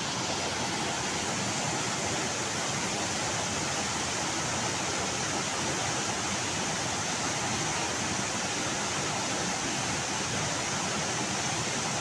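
Waterfall and rushing stream water pouring over rocks, a steady, even rushing noise that does not change.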